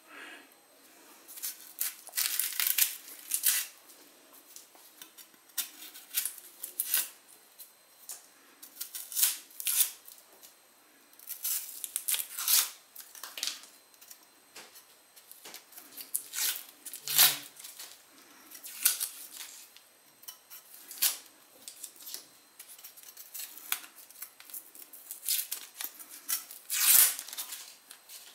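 The dry, papery outer skin of a brown onion being cut and peeled off with a kitchen knife: irregular crackling, tearing rustles that come in short strokes one after another.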